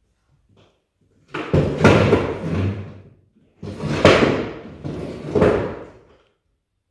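Loud knocks and scraping of chairs and tables: three sharp bangs, each trailing into a noisy scrape lasting a second or two.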